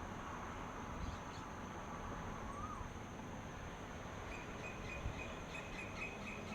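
Outdoor dawn ambience: a steady high insect drone over a low rumbling hiss, with birds calling. A couple of short rising-falling whistles come in the first half, and a chattering trill of quick chirps starts about two-thirds of the way in.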